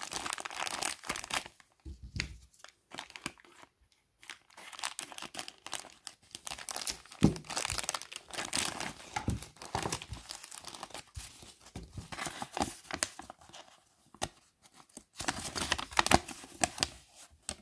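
Clear plastic bags of toy parts crinkling as they are handled close up, in irregular bursts with short pauses and one sharp click about seven seconds in. Near the end a paper instruction leaflet rustles as it is unfolded.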